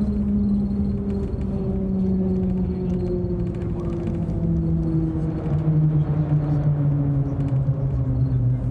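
Shanghai Maglev (Transrapid) train heard from inside the cabin as it brakes into its terminal station: a low rumble under a humming whine that falls steadily in pitch as the train slows.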